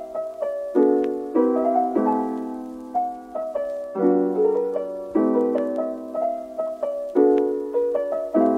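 Soft background piano music: gentle chords struck about once a second, each left to fade.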